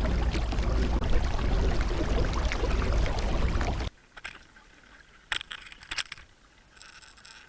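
Water rushing and splashing along a moving kayak, with low wind rumble on the microphone. About four seconds in it cuts off abruptly to a much quieter stretch with two sharp clicks and a faint high ringing near the end.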